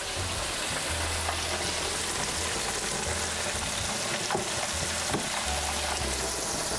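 Bisquick-coated walleye fillets deep-frying in hot oil: a steady sizzle with a few sharp crackles about four and five seconds in.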